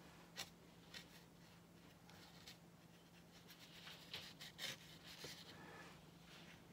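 Faint dry scratching of a watercolour brush stroking across paper, in a cluster about four to five seconds in, after a couple of light clicks in the first second. A faint steady low hum runs underneath.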